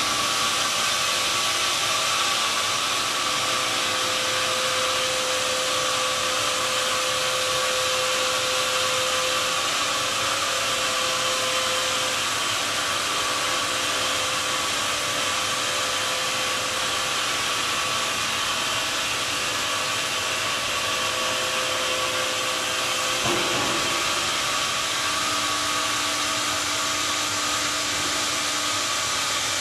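Sawmill line running with its pneumatic sawdust conveyor blower: a steady rush of air over a hum of several machine tones. A single brief knock about 23 seconds in.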